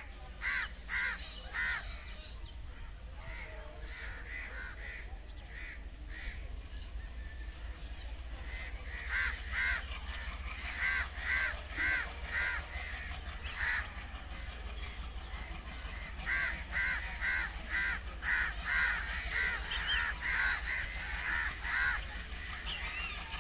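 Crows cawing over and over in runs of several calls, about two a second, over a steady low rumble.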